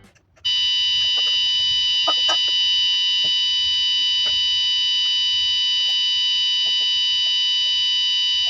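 Electronic buzzer of an Arduino Nano alarm clock sounding its alarm: one continuous high-pitched tone that starts about half a second in, with a few faint ticks beneath it.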